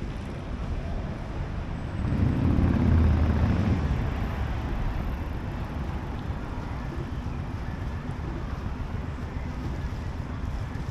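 City street traffic: a steady rumble of passing vehicles, with one vehicle driving past close by, louder from about two seconds in and fading after about four seconds.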